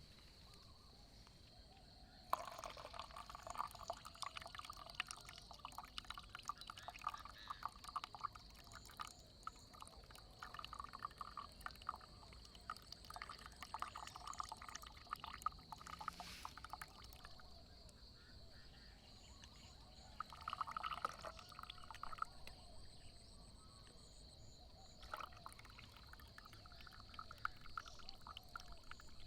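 Water poured in several separate spells, a faint trickling splash, as when brewing coffee.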